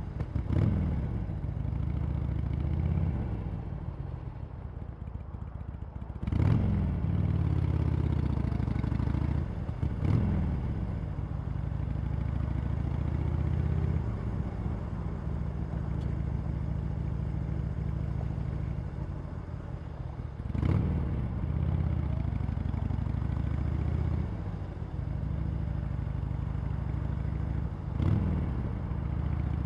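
Harley-Davidson Sportster Iron 883's air-cooled V-twin through its stock exhaust, running under way: the engine note rises sharply and falls back several times (near the start, about 6, 10, 21 and 28 seconds in), with steadier running in between.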